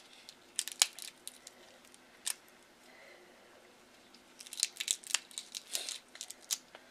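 King crab leg shell cracked and snapped apart by hand: a few sharp cracks about a second in, another near two seconds, then a quick run of crackling snaps near the end as the shell is pulled open.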